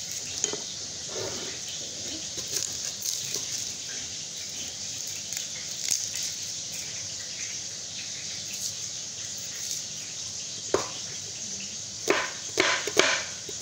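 Kitchen knife cutting a white onion held in the hand: light clicks and scrapes over a steady hiss, then a few sharp knocks of the knife and onion on a cutting board near the end.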